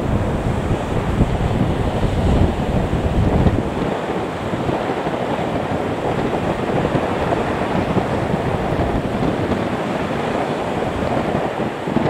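Wind buffeting the microphone, heaviest in the first three and a half seconds, over the steady noise of a Boeing 737-800's CFM56 jet engines at taxi power.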